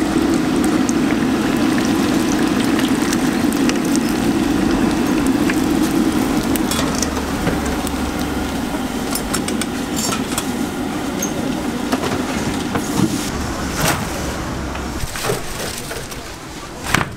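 Deep-frying oil sizzling and crackling around fried dumplings as they are lifted out with a wire-mesh skimmer. Scattered light clicks of the metal skimmer and basket come in from about halfway, and the sizzle eases toward the end.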